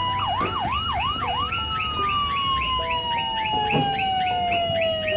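Police siren wailing, sweeping up and down quickly about four times, then a single long tone that falls slowly as the siren winds down. Rapid short chirps repeat above it.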